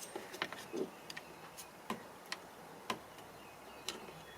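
Irregular small clicks and ticks of plastic and metal parts as the inside door handle's release cable is worked free of the handle inside a car door.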